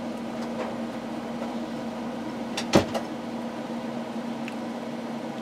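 Steady room hum with a constant low tone. A sharp click or knock comes about three seconds in, with a smaller one just after.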